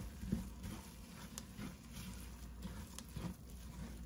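A wooden spoon stirring and scraping chopped onions and chili powder in an enamelled cast-iron pot: a run of soft, irregular scrapes and taps, the sharpest about a third of a second in, over a steady low hum.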